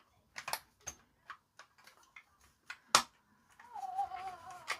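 Small plastic clicks and taps from the parts of a toy bubble gun being handled and fitted back together, with one sharper click about three seconds in.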